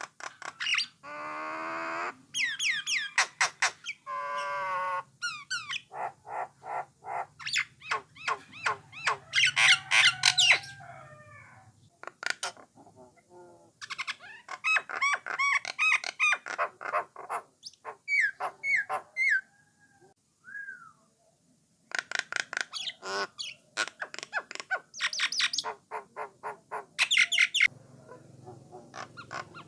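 Common myna (jalak nias) singing: a long, varied stream of fast repeated clicking notes, whistles and harsh squawking, rattling calls, broken by a few short pauses.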